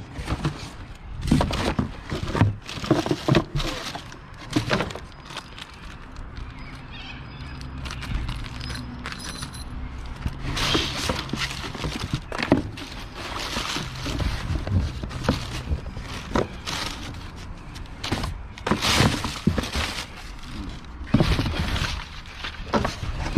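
Scrap items being handled and sorted by hand: irregular knocks, clunks and clatters as pieces are picked up, moved and set down.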